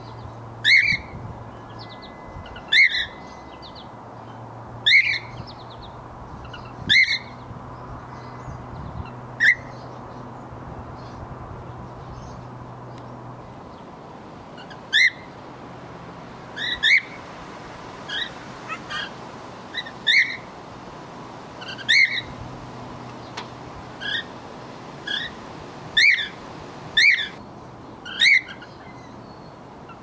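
Cockatiels calling: loud, short chirps repeated about every two seconds, a pause of several seconds midway, then quicker calls with softer chirps in between.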